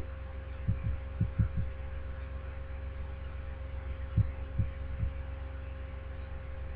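Steady low hum with a few soft, low thumps: a quick cluster of three or four about a second in, and three more spaced about half a second apart near the middle.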